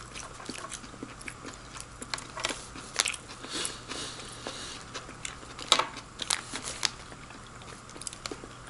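A soft white-bread sandwich being pulled apart by hand over its crinkly plastic wrapper: scattered small crackles and rustles, with a few sharper crinkles in the middle.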